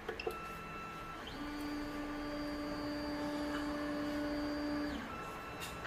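Stepper motors of a Creality CR-10 S5 3D printer driving the print head and bed to the centre of the bed for a levelling check: a steady machine whine made of several tones, starting a little over a second in and stopping about five seconds in. Before and after it a fainter high tone from the motors, and two light clicks of the control-box knob at the start.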